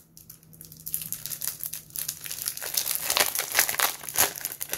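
Clear plastic packaging crinkling and rustling as it is handled around planner dividers. It starts about a second in and gets busier toward the end.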